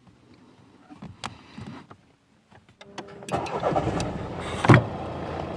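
A few clicks and knocks, then the car's engine starts about three seconds in and keeps running, with one sharp knock about a second after it catches.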